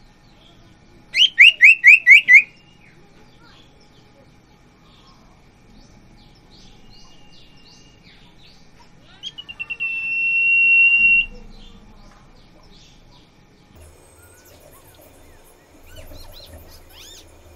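Caged common iora (sirtu) calling: a quick run of six loud, sharp whistled notes about a second in, then a few short notes leading into one long, steady whistle around nine seconds in. Faint chirps come in between.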